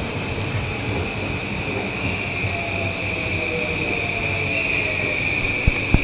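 Electric train moving through the station, with a steady high-pitched whine and a fainter tone gliding slowly down in pitch.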